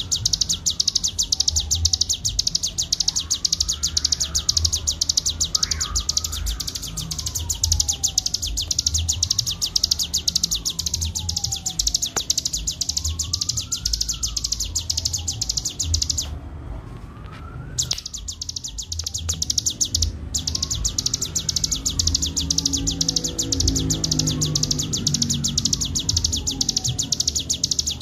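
A ciblek gunung songbird gives its continuous, very fast buzzing trill (the 'ngebren' song), broken off for a moment a little past the middle. Underneath, a slow rising-and-falling wail repeats every three to four seconds.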